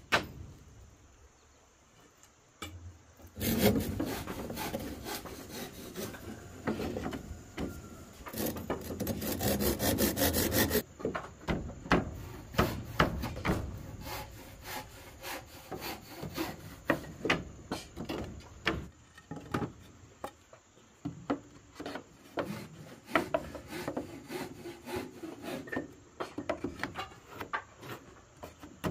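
A few seconds in, a saw starts cutting through wood, a rasping run of fast strokes lasting about seven seconds. After that comes a long series of scattered sharp knocks and clicks on wood.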